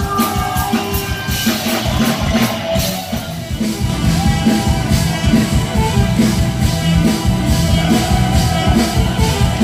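Loud live mor lam band music in the toei style, driven by a steady drum-kit beat and a bass line.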